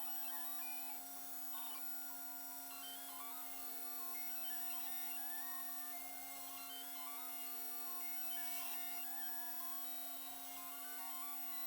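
Custom-built 5-axis CNC machine running a machining program on a two-stroke cylinder sleeve: its axis motors whine, the pitch stepping up and down as the axes change speed, over a steady electrical hum.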